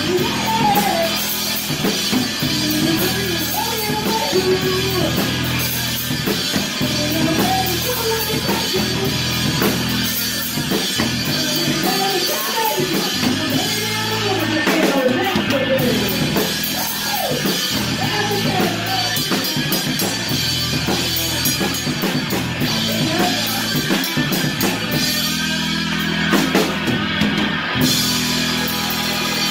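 A live rock band playing, heard from right beside the drum kit: the drums and cymbals are loud and close, with the band's guitar and vocals under them.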